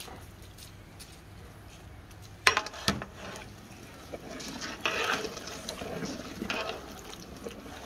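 A long metal ladle knocks twice against a large aluminium cooking pot. It then stirs rice through boiling water in the pot with irregular sloshing.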